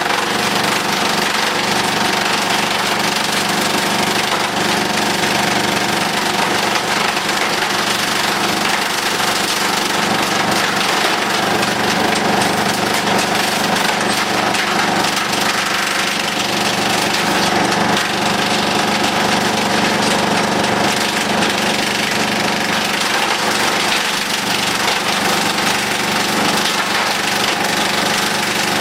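Demuth mobile drum wood chipper running, driven through the PTO by a Massey Ferguson wheel tractor: a loud, steady, rattling mechanical din with the tractor's engine hum underneath, unchanging throughout.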